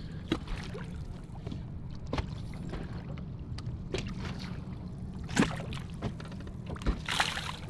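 Small waves slapping against a fishing boat's hull over a steady low rumble, with scattered knocks and a brief splash near the end.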